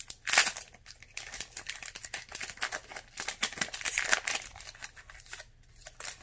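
Foil booster pack wrapper crinkling and crackling as it is handled and torn open by hand, with louder bursts about half a second in and again around four seconds.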